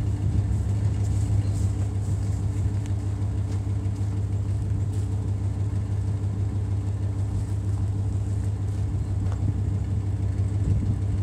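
Dodge pickup truck's engine idling steadily with an even low hum, with a few faint clicks over it.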